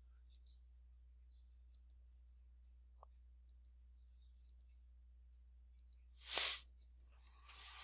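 Computer mouse buttons clicking a handful of times, several as quick pairs, over a faint low hum. A short, louder hiss about six seconds in.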